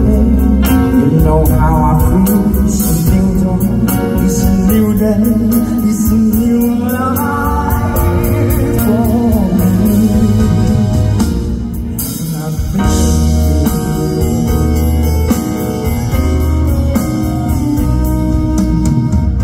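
Live pop song with a male voice singing over amplified backing music with a steady, pulsing bass. The music thins briefly about two-thirds of the way through.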